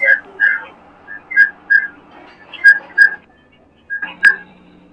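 A string of about ten short, high whistle-like chirps at nearly the same pitch, irregularly spaced, with a sharp click about four seconds in.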